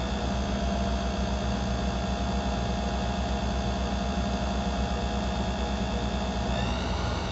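Watchmaker's lathe running steadily, a hum with a fine, even low pulsing, as it spins a balance staff while a pivot file is held to the pivot. Its tone shifts slightly near the end.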